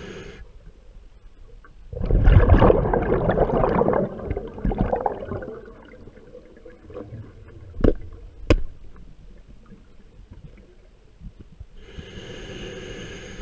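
Scuba diver breathing through a regulator underwater: a loud rush of exhaled bubbles about two seconds in, lasting about three seconds, and the hiss of an inhaled breath near the end. Two sharp clicks come about eight seconds in.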